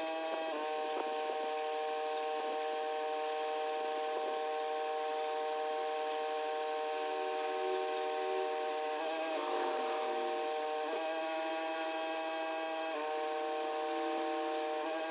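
Pressure washer running steadily: a constant machine hum made of several steady tones, shifting slightly in pitch a couple of times.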